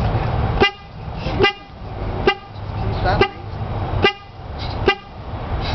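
Car horn sounding in a run of about six short honks, roughly one every 0.8 seconds, each cut off sharply. The honks come from a baby pressing the steering-wheel horn pad with her tummy.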